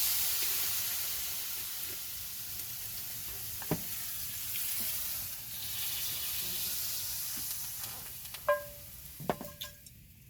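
A hot pan sizzling loudly after liquid has been poured in, the hiss slowly dying down. A few metal clinks of a utensil against the pan, one near the middle and two near the end.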